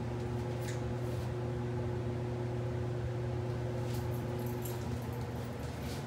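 Steady low electrical hum of boiler-room equipment, with a few faint ticks.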